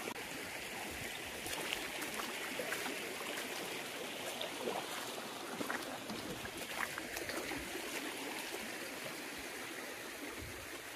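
Shallow rocky stream trickling and babbling over stones, a steady wash of water with small faint splashes.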